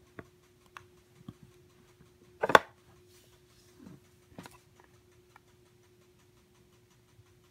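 White hard plastic Apple Watch case being handled and its lid snapped open: a few light plastic clicks and taps, then one sharp snap about two and a half seconds in, the loudest sound, and another smaller click a couple of seconds later.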